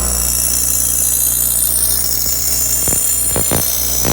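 Bench grinder running steadily, its motor humming low while the wheel grinds the edge of a Honda push mower blade, giving a high hiss and ringing whine over the hum as the dull blade is sharpened.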